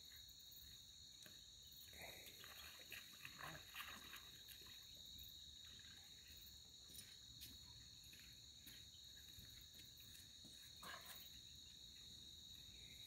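Faint, steady chirring of night insects, a continuous high-pitched drone. A few soft scuffs come between about two and four seconds in, and again near eleven seconds.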